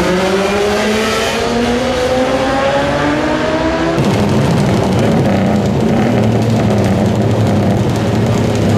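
Motorcycles accelerating hard down the track, the engine note climbing steadily. After a cut about four seconds in, a dense steady rumble of many motorcycle engines idling together on a starting grid.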